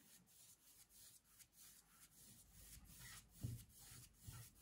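Faint, repeated swishes of a large brush spreading oil paint across a cotton canvas, with a soft low thump about three and a half seconds in.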